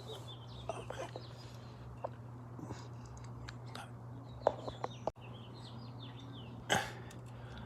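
A few sharp clicks and taps from small parts being fitted by hand onto a car's throttle linkage, over birds chirping and a steady low hum.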